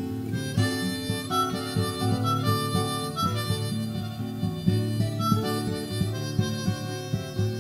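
Harmonica playing a melodic instrumental solo over acoustic guitar chords.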